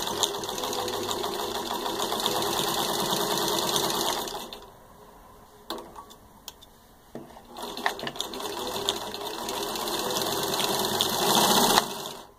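1949 Singer 15-91 sewing machine, its gear-driven potted motor running at speed and stitching through six layers of denim. It runs for about four seconds, stops for a few seconds with a few light clicks, then runs again for about four seconds and stops just before the end.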